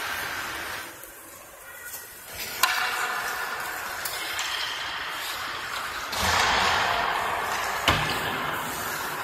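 Ice hockey skates scraping on rink ice and sticks clattering, with two sharp knocks of stick or puck, about two and a half seconds in and again near the end.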